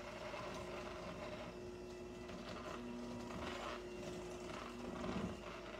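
Electric hand mixer running steadily, its beaters whirring through cream cheese and egg batter in a stainless steel bowl.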